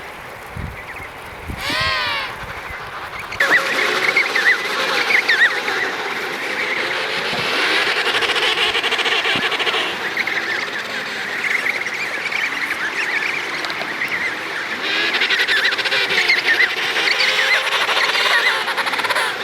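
Emperor penguin colony calling. At first there is wind rumble on the microphone with a single call about two seconds in. Then, about three and a half seconds in, it changes abruptly to a dense chorus of many overlapping high chirps that thins out midway and thickens again near the end.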